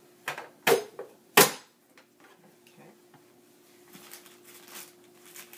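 Three sharp plastic clacks in the first second and a half, the last the loudest, as a foot works the lid of a Vidalia Chop Wizard vegetable chopper. Faint rustling of a plastic bag follows near the end.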